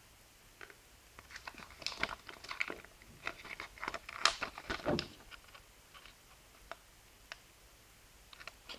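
Thin paper leaflet crinkling and rustling as it is handled and unfolded: a few seconds of crisp crackles, then only scattered faint ticks.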